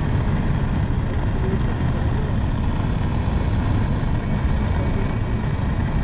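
Single-engine high-wing propeller plane's engine and propeller running as it rolls on the grass before takeoff, heard from a camera under the wing: a steady low rumble with no letup.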